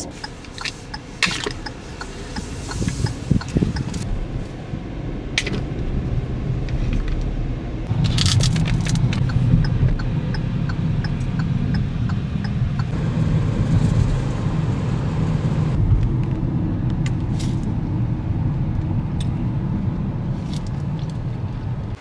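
Steady low rumble of a car heard from inside the cabin, stepping up about eight seconds in, with scattered clicks and rustles of something being handled.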